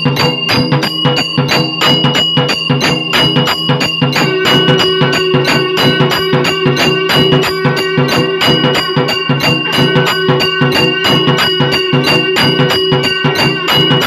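Electric aarti machine playing: motor-driven strikers beat two brass bells, jhalar cymbals and a nagara drum in a rapid, even rhythm of about five strokes a second, with the bells ringing on. A steady held tone joins about four seconds in.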